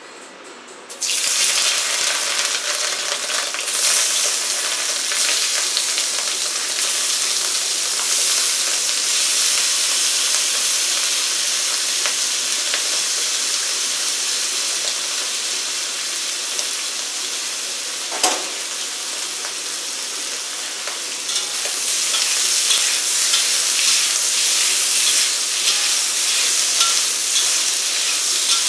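Sliced ingredients hit a hot wok about a second in and sizzle loudly, then keep frying steadily. There is a single knock a little past halfway, and in the last third a metal spatula scrapes and stirs them around the wok.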